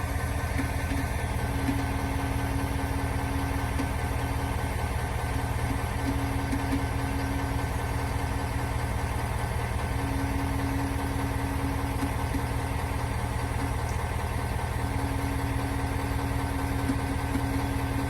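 Ford Super Duty's 6.7 L Power Stroke V8 diesel idling, with a steady mid-pitched whine that swells and fades every few seconds. The owner and the dealer put the whine down to the fuel lift pump; Ford calls it normal.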